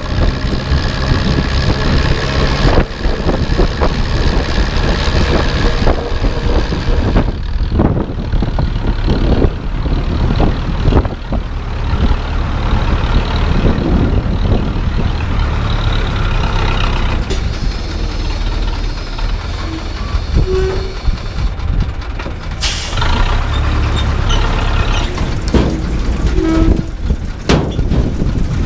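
Zetor 7011 tractor's diesel engine running as it drives, with continual rattling and clanking from the machine. A sudden loud burst of noise comes about three-quarters of the way through.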